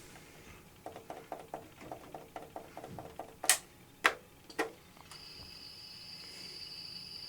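A quick run of small clicks at about six a second, then three louder separate clicks. About five seconds in, a steady high-pitched whine starts.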